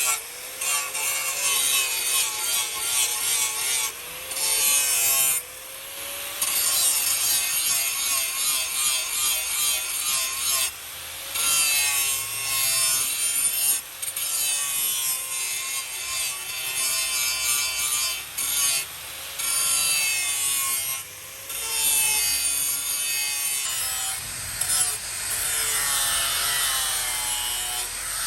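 A hand tool rasping against material in repeated stroking runs of a second or two, with short pauses between them.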